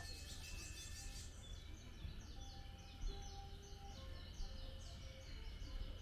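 Small birds chirping in woodland: a rapid run of short, falling chirps over a low, steady rumble.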